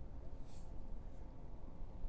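A brief hiss about half a second in as salt is squeezed from a plastic squeeze bottle into a razor clam burrow in wet sand, salting the hole to drive the clam up, over a steady low rumble.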